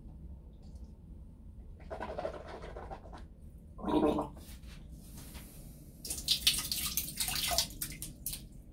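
A man gargling a mouthful of tap water, in short bursts, with a loud gurgle about four seconds in and a longer run of wet, sputtering noise near the end.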